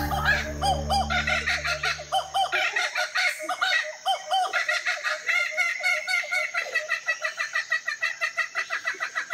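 Music with low sustained notes fades out about three seconds in, under a fast, steady run of short, bird-like chirping calls, several a second, that carries on throughout.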